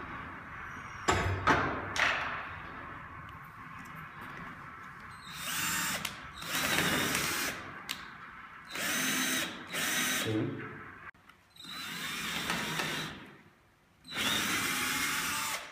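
Cordless drill boring holes through asphalt roof shingles, run in about six short bursts of one to two seconds with pauses between. A few sharp knocks come in the first two seconds, before the drilling starts.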